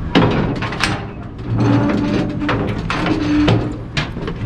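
Salt-mine shaft cage rattling and clanking during its descent: irregular knocks and clatter, with a steady whine held for a second or two in the middle.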